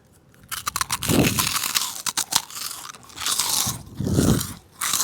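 A crunchy snack being bitten and chewed close to the microphone, ASMR-style, with many sharp crackles.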